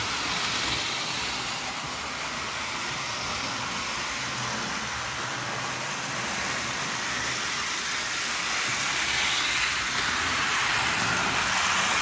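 Postwar Lionel 221 O-gauge steam locomotive running along the track: a steady whirr and rumble of its electric motor and wheels, growing louder near the end as it comes close.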